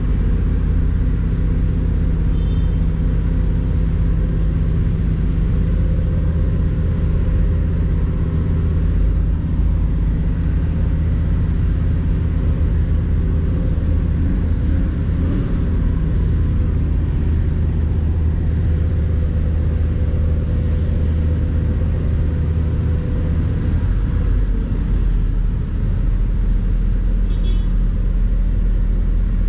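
Engines idling steadily in stopped traffic: a Honda motorcycle at rest right beside an idling city bus, a constant low hum.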